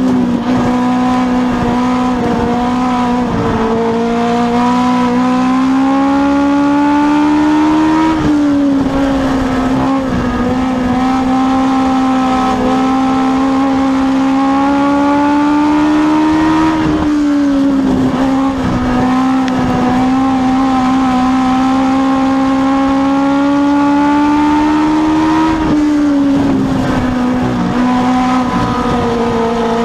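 Inside a Legends race car at racing speed: its four-cylinder Yamaha motorcycle engine running hard at high revs. About every nine seconds the revs drop sharply, then climb steadily again, lap after lap.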